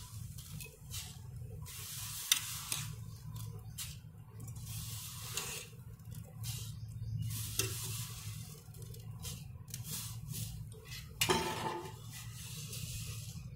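Dry vermicelli being tipped from a steel pan into an aluminium pot of boiling water: an irregular rustling and splashing with scattered clinks of metal on metal, and a louder clatter of the pans near the end.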